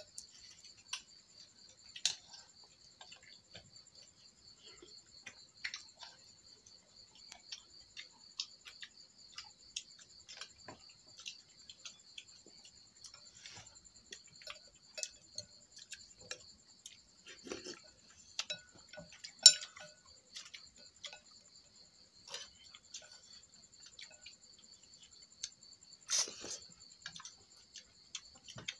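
Night insects trilling in a steady, high, fast-pulsing drone, over scattered clinks of metal spoons and chopsticks against porcelain bowls during a meal, with one sharper clink about two-thirds of the way through.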